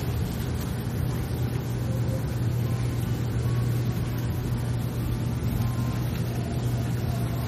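Steady low mechanical hum, like a motor or engine running without change, over a constant background rush.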